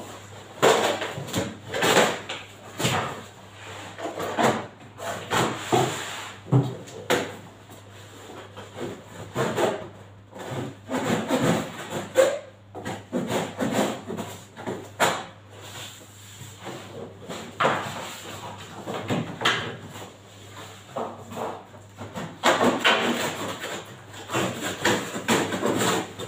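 A deep freezer's cardboard shipping box and packing being worked open by hand: irregular scraping, rubbing and knocking of cardboard.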